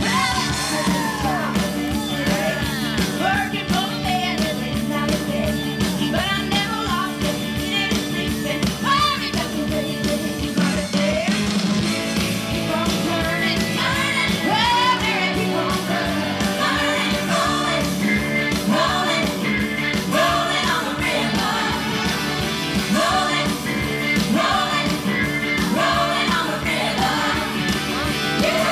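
Upbeat rock-and-roll-style song with a singer over a steady beat, playing loudly for a stage dance routine.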